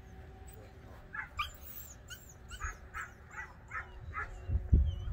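American Pit Bull Terrier giving a run of short, high-pitched yips and whines, about two a second, while held on a lead facing the bite-suit decoy. A loud low rumble comes in near the end.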